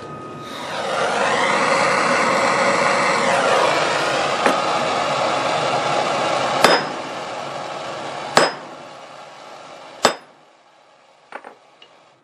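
A steady hiss, from the propane torch heating the part, then a ball-peen hammer striking a washer on the cast-iron pole piece of a speaker field coil: one light tap, then three sharp, ringing metallic blows about 1.7 seconds apart, trying to drive the pole out. Two faint clicks follow near the end.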